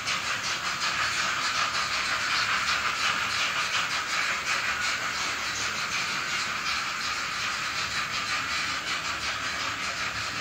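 N-scale model steam locomotive (Arnold 41 001) with a digital sound decoder, playing steady, even steam chuffing and hiss through its small speaker as the model runs.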